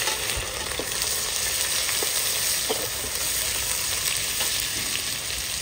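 Sliced onions sizzling in hot mustard oil in a pot, a steady frying hiss with a few light ticks.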